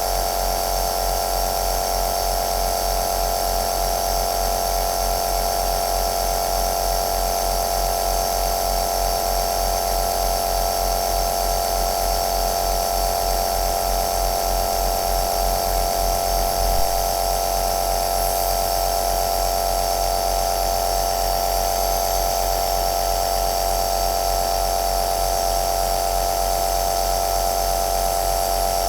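Compressor nebulizer running steadily: a constant motor hum with a strong steady tone and an airy hiss, with one brief small click about seventeen seconds in.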